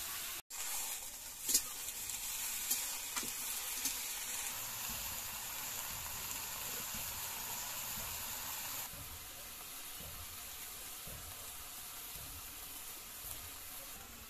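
Mushrooms and brinjal sizzling as they fry in a kadai over a wood fire, with a few sharp clicks of a metal spatula against the pan in the first few seconds. The frying hiss gets a little softer about nine seconds in.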